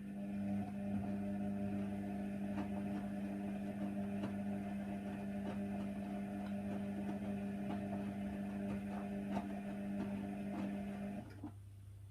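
Hoover Nextra washer dryer's motor running steadily for about eleven seconds with a hum and scattered light knocks, then stopping abruptly. The pattern fits the drum turning in one direction during the wash tumble.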